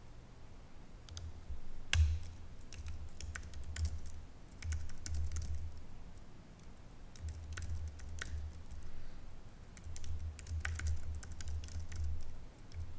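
Typing on a computer keyboard in quick bursts of keystrokes, each with a light click over a low thud, pausing briefly about six seconds in.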